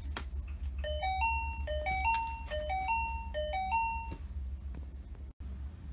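A sharp click, then an electronic chime: a rising three-note beep figure played four times in about three seconds, over a steady low hum.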